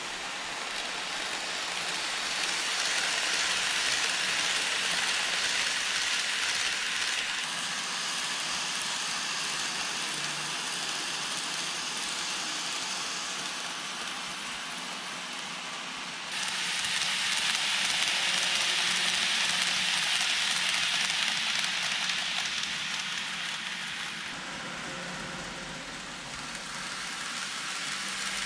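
N-gauge model of the KATO 683 series 4000 'Thunderbird' electric train running on layout track: a steady hissing rush of small metal wheels rolling on the rails. It swells and fades twice and jumps suddenly louder about two-thirds of the way through.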